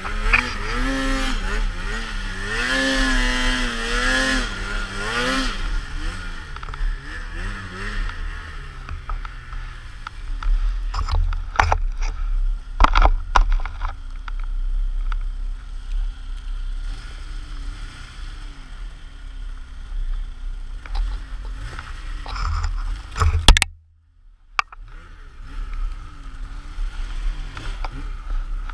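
Polaris Pro RMK two-stroke snowmobile engine revving hard under load on a steep powder climb, its pitch rising and falling over the first few seconds, then running rougher and lower with scattered knocks and scrapes. Wind buffets the microphone throughout, and the sound drops out briefly about 24 seconds in.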